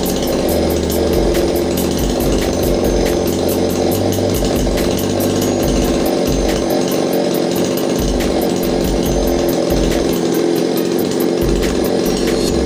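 Two-stroke chainsaw engine running steadily at high speed.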